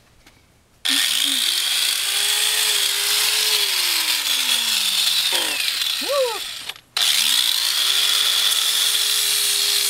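Electric angle grinder switched on and grinding a horse's hoof, a steady high whine whose pitch sinks for a couple of seconds as it bites under load. It cuts off briefly a little before the end, then is switched on again and spins back up.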